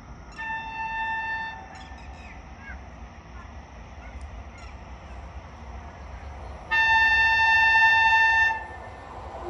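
Horn of an approaching Indian electric locomotive hauling the Bhubaneswar Tejas Rajdhani Express, sounded twice: a short blast about half a second in, then a longer blast of about two seconds near the end.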